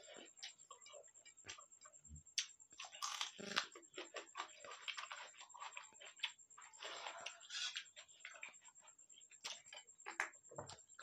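Faint eating sounds: chewing and lip smacks, with fingers working rice and curry on steel plates, making many small clicks and wet smacks.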